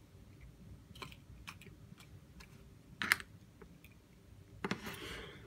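Small clicks and taps of an iPhone 6s and its small parts being handled during a teardown, with a sharp click about three seconds in and a knock followed by a brief scraping near the end.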